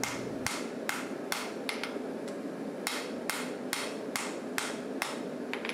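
Hand hammer blows on a white-hot steel billet on an anvil, forge welding the fluxed stack of layers: two runs of steady strikes, about two and a half a second, with a pause of about a second between them.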